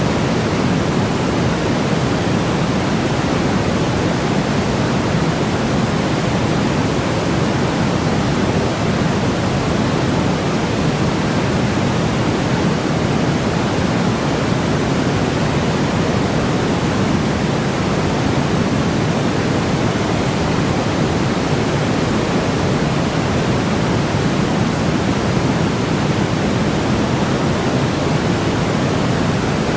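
Steady white noise for sleep or calming: an even, unchanging hiss, fuller in the low range than the high.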